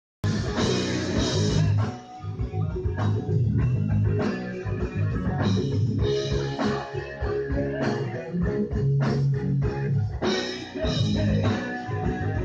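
Live hard rock: electric guitar riff over bass guitar and drum kit, the recording cutting in abruptly at the start.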